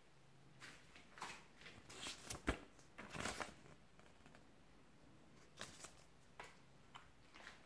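Faint rustling of a small folded paper instruction leaflet being unfolded and handled. The rustling comes in a cluster of short crinkles in the first few seconds, followed by a few soft ticks.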